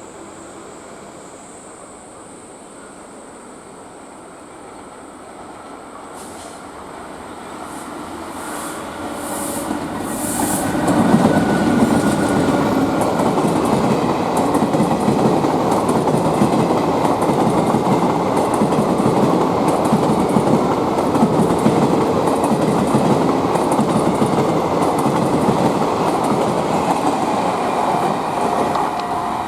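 Passenger train approaching and then running past close by, growing louder over several seconds and then a loud, steady rush of wheels rattling over the rails for the rest of the time.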